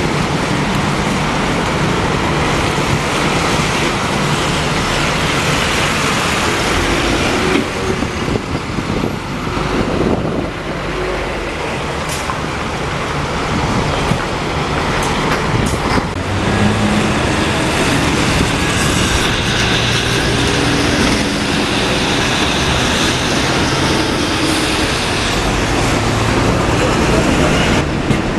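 Double-decker bus diesel engines running and pulling away, with cars passing and general city traffic noise.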